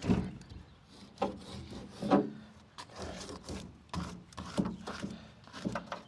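Hands pressing and rubbing an interior car door panel into place: irregular knocks and scraping rubs.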